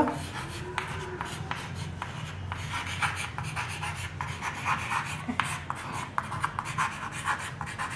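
Chalk writing on a green chalkboard: an irregular run of short scratches and taps as letters are written out.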